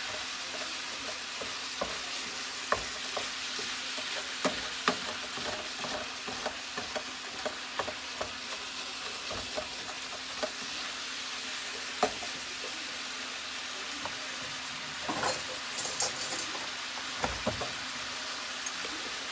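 Ground beef and onion sizzling steadily as they brown in a skillet, with the meat-masher utensil clicking and scraping against the pan as the meat is stirred and broken up. A few louder knocks come about fifteen seconds in.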